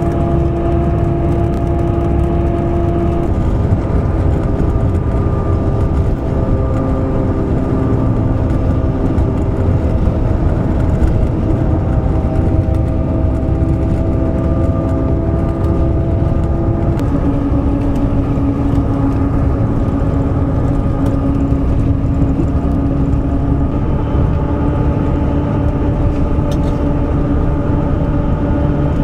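Engine and road noise heard from inside a moving vehicle, a steady rumble whose engine note shifts pitch a few times as it changes speed.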